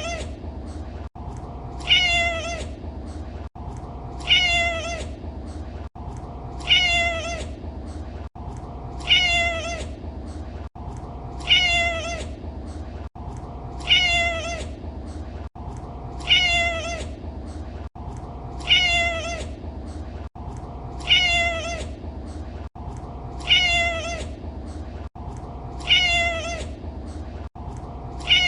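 A domestic cat's single meow, falling in pitch, repeated identically about every two and a half seconds as a loop, with a brief gap at each loop point. A steady low rumbling noise runs underneath.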